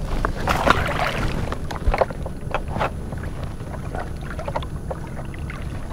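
Water splashing and sloshing as a snook is held in the water beside the kayak to be released, the splashes busiest in the first few seconds and easing to gentle sloshing, over a low rumble of wind on the microphone.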